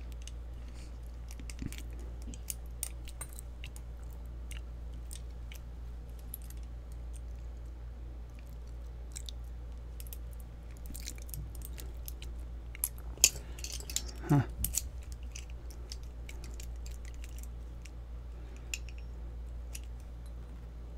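Small metallic clicks and scrapes of a lock pick working inside a pin-tumbler lock cylinder as the retainer pin is picked. The clicks come sparsely, then in a louder cluster with a short falling squeak about 13 to 14 seconds in, over a steady low electrical hum.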